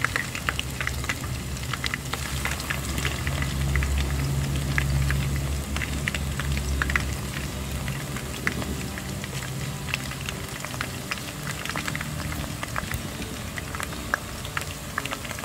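Breaded chicken feet deep-frying in hot oil in a wok: a steady sizzle full of small crackles and pops. A low rumble swells under it for a few seconds, starting about three seconds in.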